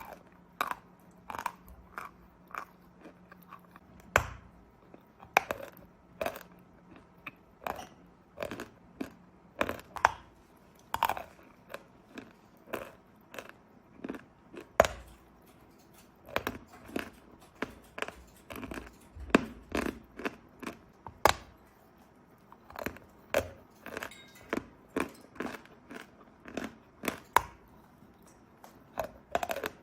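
Dry 'Belaya Gora' chalk being bitten and chewed close to the microphone: a run of sharp, irregular crunches, about one to two a second.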